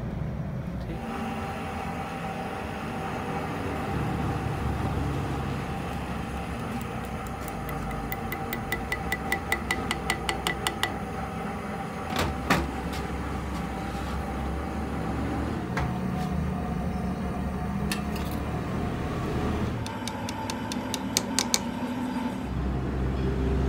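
Steady machine hum with a held whine throughout. Runs of quick, light metallic ticks, several a second, come around the middle and again near the end, with a single sharp metal knock about halfway, as metal parts are handled and fitted onto a small engine crankshaft.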